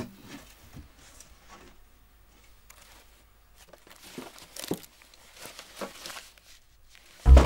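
Hands rustling and handling velvet pouches tied with ribbon inside a box: soft, scattered crinkles and small knocks. Loud dramatic music comes in suddenly just before the end.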